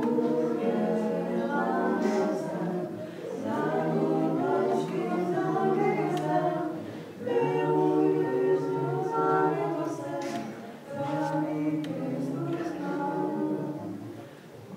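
A small group of voices singing a cappella in chorus, in several held phrases with short breaks between them.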